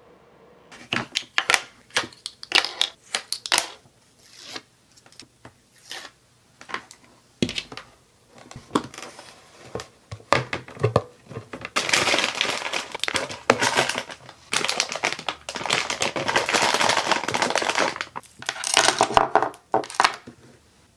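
Hands folding and handling a silver foil-lined cardboard gift box: a run of sharp crinkles and taps, then several seconds of dense crinkling and rustling, with more crinkles near the end.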